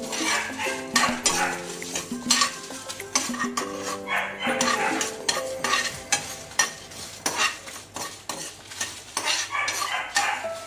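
A steel spoon stirring and scraping dried red chillies, chana dal and peppercorns around an aluminium pan as they roast, with repeated clinks and scrapes and a light sizzle. Background music with held notes runs underneath.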